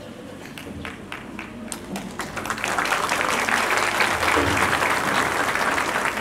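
Audience applause. It starts as a few scattered claps and swells into full, steady clapping about two and a half seconds in.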